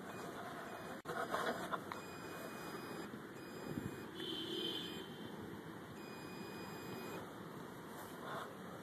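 Handheld metal-detecting pinpointer probed into a freshly dug hole gives a short buzzing tone about four seconds in, the alert that it is close to metal. A few knocks and rustles of soil being handled come about a second in.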